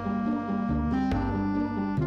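Background music: a melody of short, evenly changing notes over a bass line.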